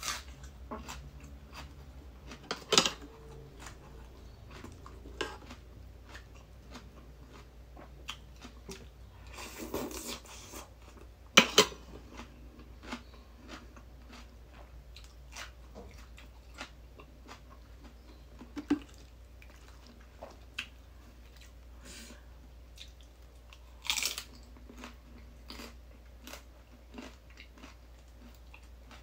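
Close-up chewing of crisp raw water spinach: a mouthful crunched with irregular wet crunches, the loudest about 11 seconds in and again near 24 seconds.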